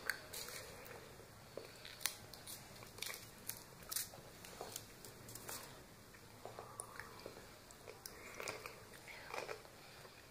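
Faint, irregular small clicks and crunches from plastic surprise eggs and candy being handled, denser in the first half and a few again near the end.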